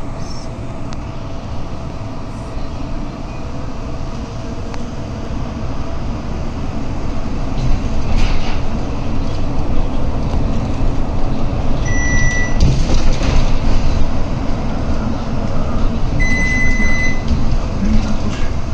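Cabin noise of an articulated city bus under way: steady engine and road rumble that grows louder from about a third of the way in. Two short high electronic beeps sound in the last third, the second a little longer.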